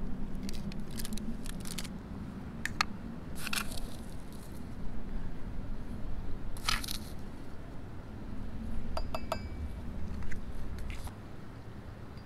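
Scattered clicks and clinks of small hard objects being handled, with two short crunching bursts and a quick cluster of ringing clinks about nine seconds in, over a steady low rumble.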